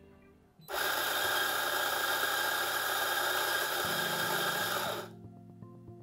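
Fiorenzato F64XGI commercial espresso grinder running its flat burrs through beans for a single-dose test grind in its auto-calibration run. It starts abruptly under a second in, runs steadily, and cuts off by itself after about four and a half seconds.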